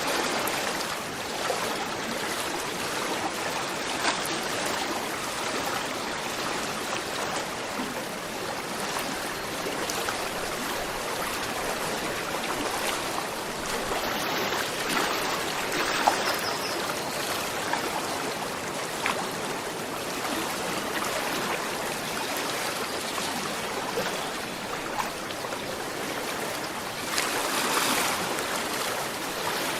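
A gentle river flowing steadily, water babbling and trickling over stones with small splashes rising and falling.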